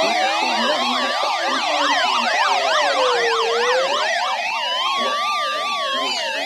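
Several sirens sounding together: one slow wail rising and falling about every four seconds, layered over faster up-and-down yelping sweeps, several a second.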